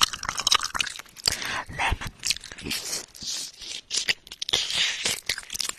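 Wet mouth sounds right against an ear-shaped binaural microphone: a dense, irregular run of lip smacks and clicks, with a couple of breathy hisses.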